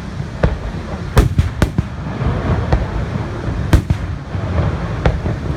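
Fireworks shells bursting: a string of sharp bangs, several in quick succession about a second in and another loud one past the middle, over a steady low rumble.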